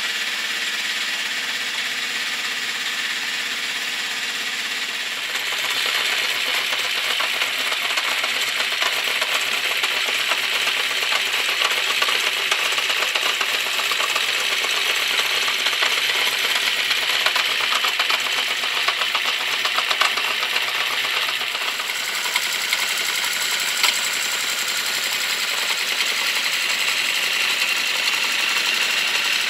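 Honda CB650 Custom's air-cooled inline-four idling with a rapid mechanical clicking, louder about five seconds in. The owner puts part of the ticking down to the valves on cylinders 3 and 4 and suspects the rest comes from the clutch or cam chain area.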